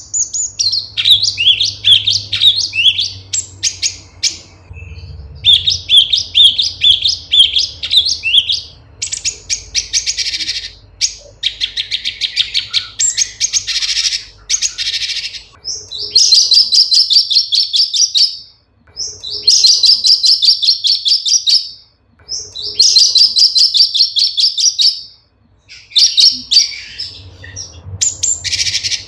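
Cucak cungkok, a leafbird, singing: fast, varied chattering and whistled phrases in the first half, then, from about halfway, long dense trills lasting two to three seconds each, with short pauses between them.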